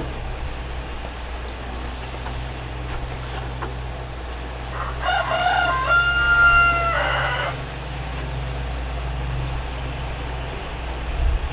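A rooster crowing once, about five seconds in: a single drawn-out call lasting roughly two and a half seconds, over a steady low rumble.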